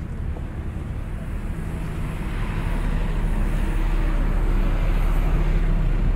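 Open-top double-decker bus driving past close by: a steady low engine rumble that grows louder through the second half.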